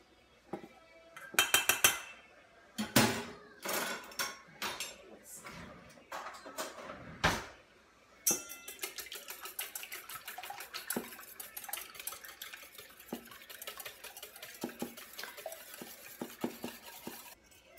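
Eggs being whisked in a bowl: a utensil clinks rapidly and continuously against the bowl from about eight seconds in, after a few separate clinks and knocks of a utensil on dishes.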